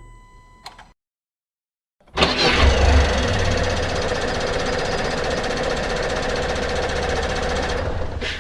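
A car engine starts about two seconds in, with a loud burst as it catches, then runs steadily for about six seconds before cutting off abruptly. Before it, a fainter engine sound and a click fade into a second of silence.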